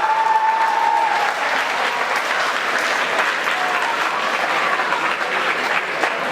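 Large audience clapping steadily, with cheering voices, one of them holding a high call through the first second.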